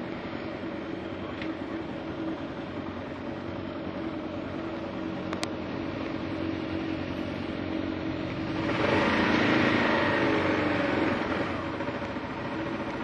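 Single-cylinder engine of a 2009 Kawasaki KLR 650 motorcycle running steadily at low road speed. A louder rush of noise swells up about two-thirds of the way through and fades after a few seconds.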